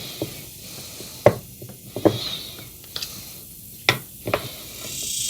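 Several separate sharp clicks and knocks, about six at irregular spacing, from a ball-grip screwdriver and a 1/4" hex bit extender being handled and fitted together.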